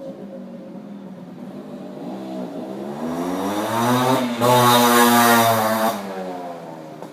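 Suzuki AX100 two-stroke single-cylinder engine through a generic racer exhaust pipe, its revs climbing, held loud for about a second and a half, then dropping away.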